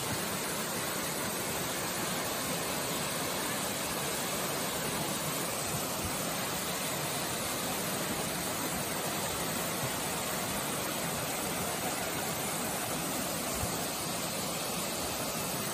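A small waterfall cascading over rock ledges: a steady, even rush of falling water.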